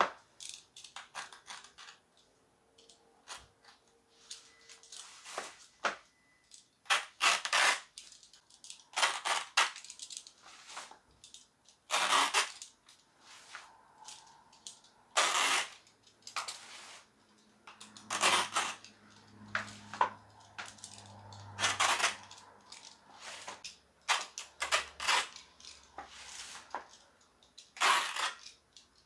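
A utility knife slicing through the rubber of a wire-bead bicycle tyre to strip out the bead, in a series of separate sharp cutting strokes about every two to three seconds, with quieter scraping between them.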